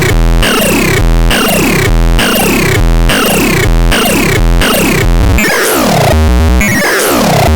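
Synthesizer playing a looping electronic pattern: a low bass note pulsing about once a second, with falling pitch sweeps over it. The pattern changes about six seconds in.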